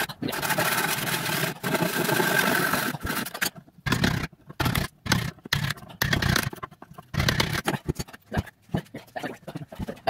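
A power tool runs steadily for the first three and a half seconds. Then come irregular knocks and short bursts: a hammer striking the wooden 2x4 frame and a cordless drill boring into it.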